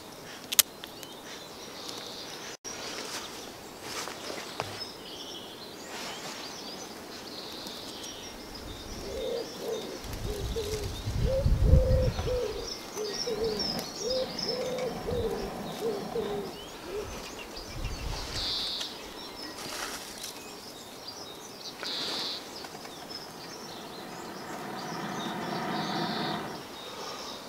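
Gusts of wind buffeting the microphone, with a pigeon cooing over and over in the middle and small birds chirping. Near the end comes a breathy blowing sound as a person blows on smouldering tinder.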